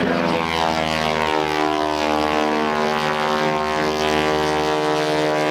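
A modified Boeing-Stearman PT-17 biplane's radial engine and propeller drone steadily in flight, an even pitched drone that settles slightly lower in the first second.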